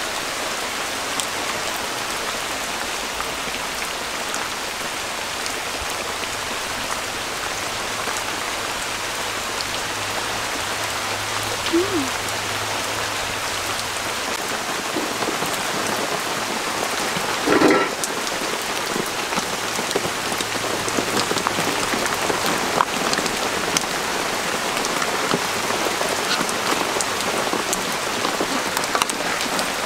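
Steady rain falling on a thatched shelter roof and the wet ground around it. About two-thirds of the way through, a brief, louder pitched sound stands out over the rain.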